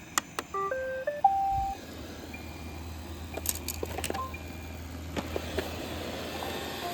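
iRobot Roomba 670 robot vacuum starting a cleaning run: a short electronic start-up tune of stepped beeps ending on a held note, then the robot running with a steady low hum and scattered clicks and taps.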